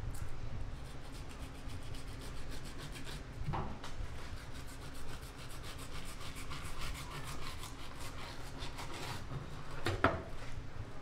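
Knife blade scraping between yellowtail skin and flesh against a white plastic cutting board as the skin is sliced off the fillet, in quick repeated strokes. A knock about a third of the way in, and a louder knock near the end as the knife is laid down on the board.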